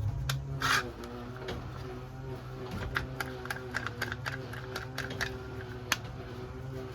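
Sharp clicks and taps, with a quick run of about three a second through the middle, over a steady low hum.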